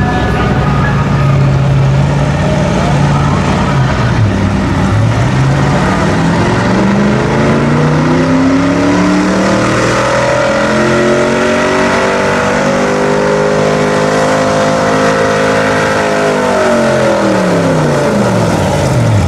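Late-1970s Ford pickup's engine under full load, pulling a weight-transfer sled on dirt. The note holds steady, dips about four seconds in, climbs over the next several seconds and holds high, then falls away near the end as the driver lets off at the end of the pull.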